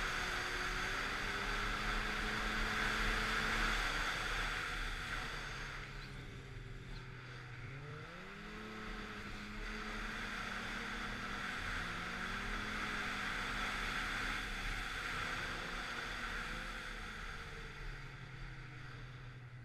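Snowmobile running along a groomed trail. Its engine note eases off a few seconds in and picks up again with a rise in pitch around eight seconds, over a steady rushing noise.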